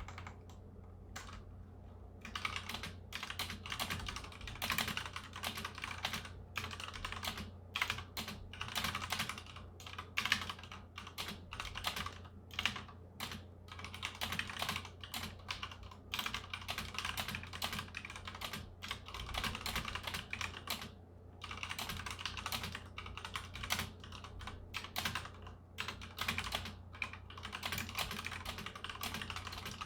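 Typing on a Ducky One 2 full-size mechanical keyboard with Cherry MX Red linear switches: a fast, irregular stream of key clacks. It is sparse for the first couple of seconds, then continuous, with a brief pause about twenty-one seconds in.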